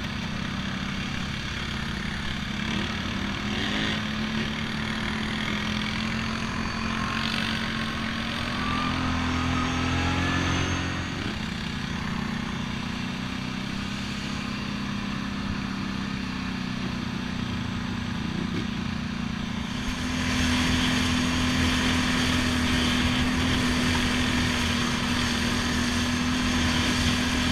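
ATV engine running at a steady cruise while the quad is ridden along a trail. The engine pitch climbs a little about a third of the way in, then settles, and the sound gets louder and hissier about two-thirds through.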